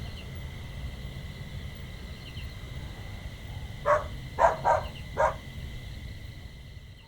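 Four short, sharp animal calls close together, a little under four seconds in, over a steady high-pitched insect drone.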